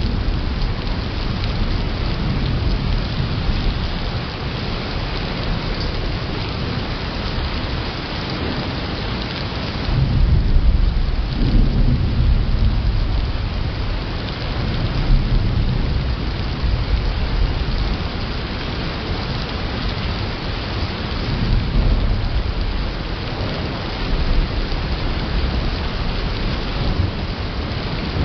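Thunderstorm: a steady hiss of heavy rain, with deep rolling thunder that swells about ten seconds in and rumbles for several seconds, and weaker rumbles later on. The recording is slowed to about a third of normal speed.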